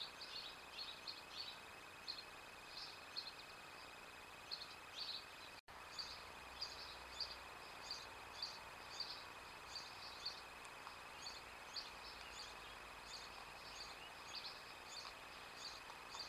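Small songbirds chirping faintly: short high notes repeated at irregular intervals over a steady faint hiss of outdoor background noise.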